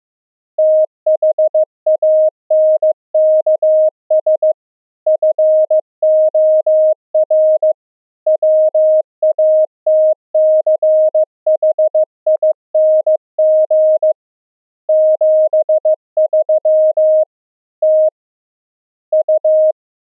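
Morse code (CW) tone, one steady mid-pitched beep keyed on and off in dots and dashes with gaps between letters and words, spelling out "thanks for watching 73".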